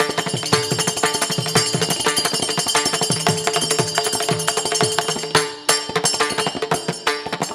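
Devotional ensemble music without singing: rapid, jingling metal percussion and drum beats over a sustained drone, with a brief break in the beat about two-thirds of the way through.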